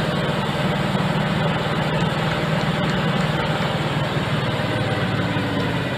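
Concrete mixer truck's diesel engine running steadily, with a fast even pulsing.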